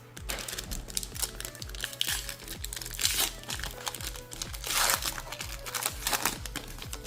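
Crinkling and tearing of a foil Pokémon booster pack wrapper as it is opened, in several loud rustling bursts. Background music with a steady beat plays underneath.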